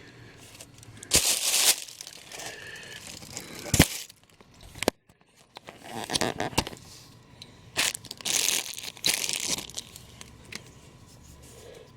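Packaging being handled and pulled apart while a statue is unwrapped: several separate bursts of crinkling and rustling, with a sharp click about four seconds in.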